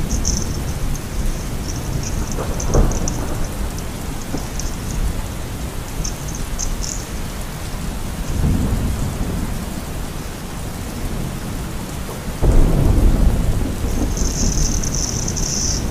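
Rain with thunder: a steady hiss over a low rumble, with a louder roll of thunder breaking in about twelve and a half seconds in.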